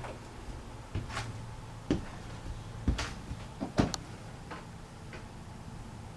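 A run of sharp knocks and clicks at uneven spacing, about one a second, the strongest in the first four seconds and fainter after, over a low steady hum.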